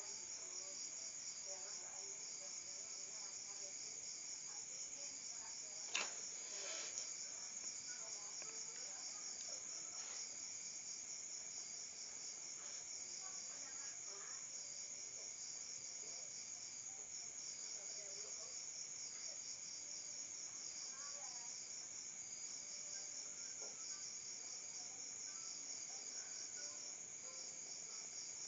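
Insects chirping in a steady, high-pitched pulsing trill that runs on without a break, with a single sharp tap about six seconds in.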